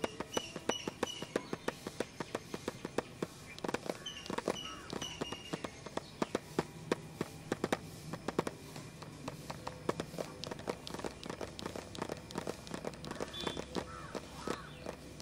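Fingertips and nails tapping and scratching on the lid of a pencil box: a rapid, irregular run of sharp taps, several a second.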